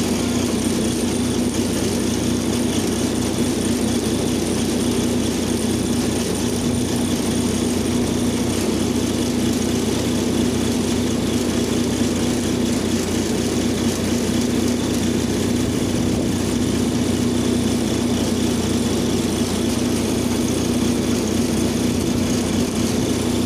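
Heavy diesel excavator engine running steadily at a constant pitch, with no change in speed.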